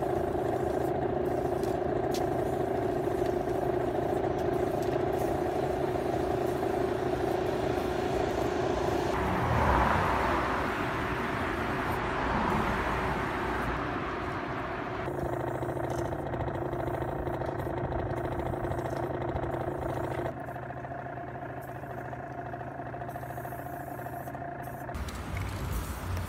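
Steady city-street traffic hum, with a louder rushing noise about ten seconds in.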